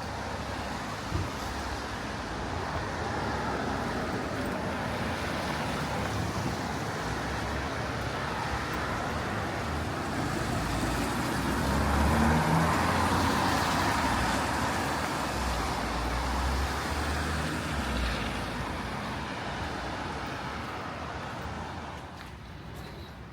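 Road traffic on a wet street: a vehicle passes with tyre hiss and engine rumble, building to its loudest about halfway through and fading toward the end.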